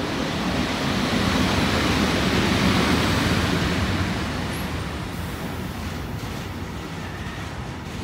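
Container flat wagons of a freight train rolling past: a steady rushing noise of wheels on rail, loudest a couple of seconds in and easing off a little after about four seconds.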